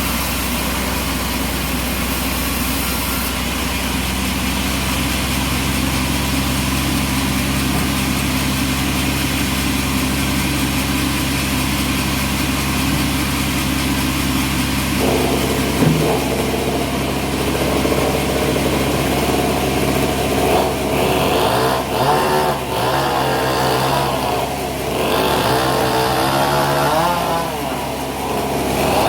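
Engine-driven bandsaw sawmill running steadily. About halfway through the sound changes, and in the last part its pitch wavers up and down as the load shifts.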